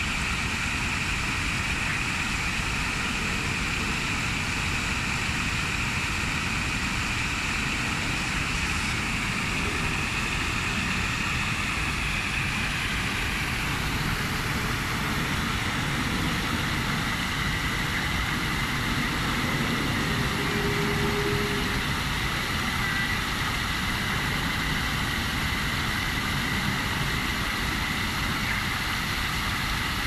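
A small stream bubbling and flowing steadily.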